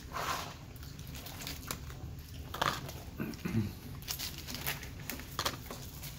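Close-up eating sounds: chewing and handling a Burger King Whopper and onion rings on a paper wrapper, with irregular crinkles of paper and small mouth clicks, and a brief low hum from the eater about halfway through.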